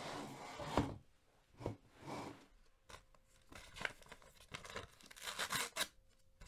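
A paper envelope being handled and torn open, a series of rustling, tearing strokes. The strongest strokes come at the start and again about five seconds in.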